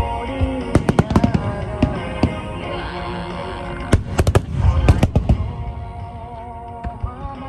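Aerial fireworks bursting in rapid clusters of sharp bangs and crackles, the heaviest volley about four to five seconds in, over music playing through loudspeakers. The bursts thin out near the end, leaving mostly the music.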